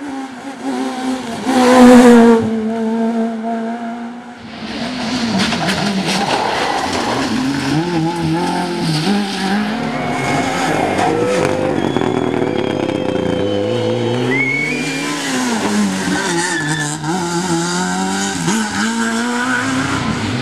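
Rally car engines at full throttle. One car passes close by about two seconds in. After a short dip, an engine revs up and down again and again through gear changes, with bursts of tyre squeal.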